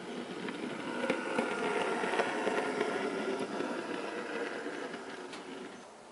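Bachmann OO gauge USA S100 0-6-0T model locomotive running along the track, its small motor and gears whirring with a few clicks from the wheels on the rails. It grows louder as it approaches and fades as it runs away. It is a brand-new model on its first run, running smoothly.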